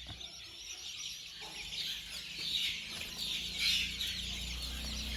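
A brood of about ten-day-old country chicken chicks peeping, many high chirps overlapping. A low steady hum comes in underneath after about three seconds.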